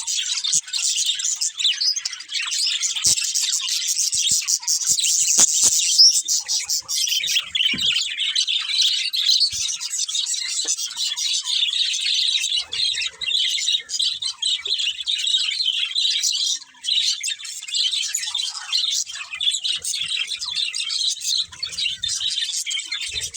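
Budgerigars chirping and chattering all together without a break, dense and high-pitched, with a few small clicks and knocks in the first few seconds.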